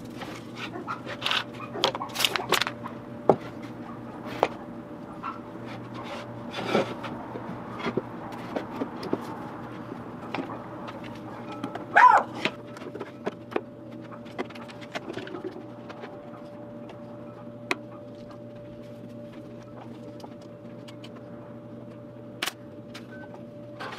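Irregular light knocks and clicks, as of plywood pieces being handled and fitted for a glue-up, over a steady low hum. About halfway through there is one short, higher tone that bends in pitch and is the loudest sound.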